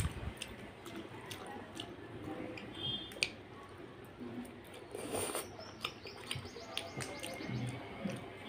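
Close-up eating by hand: fingers squishing rice into wet curry, then chewing and lip smacks, with scattered sharp mouth clicks.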